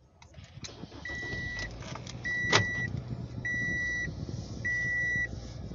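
A car engine starts and runs at idle while a dashboard warning chime beeps four times at an even pace, one steady tone about every second and a bit. A single sharp click comes about two and a half seconds in.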